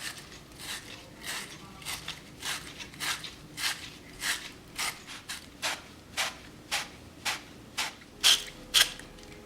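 Abrasive being rubbed back and forth over half-inch copper pipe and fittings to clean them before soldering. The strokes are short, rasping and regular, about two a second, with two louder strokes near the end.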